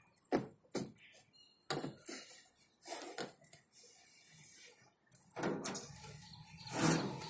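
Scattered sharp knocks and light rattling taps, then a louder scuffing stretch near the end, as a toddler moves through a plastic play tunnel.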